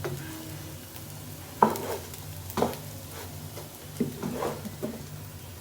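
Raw rice frying in a pot for polao, being stirred with a spatula: a soft sizzle with sharp scrapes and knocks of the spatula against the pot, the loudest about one and a half, two and a half and four seconds in. This is the stage of frying the rice until it smells fragrant, before the water goes in.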